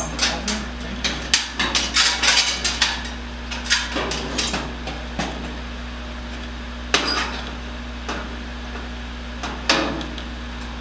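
Metal clanking and knocking as sheet-metal fender parts and tools are worked: a quick run of sharp taps in the first few seconds, then a few separate knocks.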